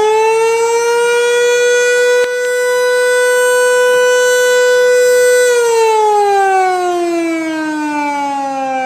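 Fire station alarm siren sounding its weekly test: one loud, steady wailing tone that, about five and a half seconds in, begins to slide slowly down in pitch.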